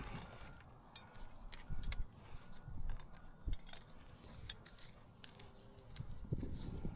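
Scattered faint clicks, small knocks and rubbing of drop cables and hardware being handled.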